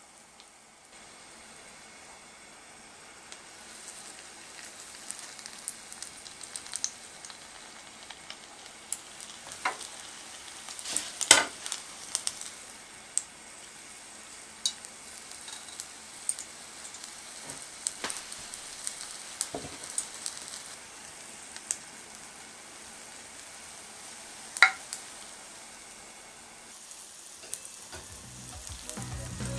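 Battered corn dogs deep-frying in a small pot of hot oil: a steady sizzle that builds over the first few seconds, with scattered sharp crackles and a few louder pops.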